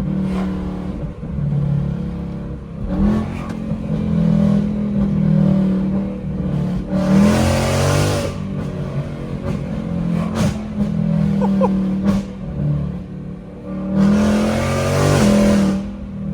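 Ford Mustang GT's Coyote 5.0 V8 running loud through catless Kooks long-tube headers, an H-pipe and the factory active-valve exhaust, with a light rise in revs about three seconds in and two hard accelerations, one about halfway and one near the end.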